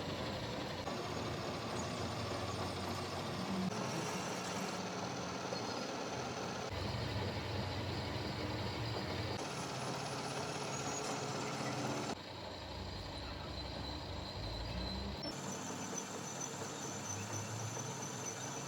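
Steady machinery noise in a string of short clips, its character changing abruptly every few seconds.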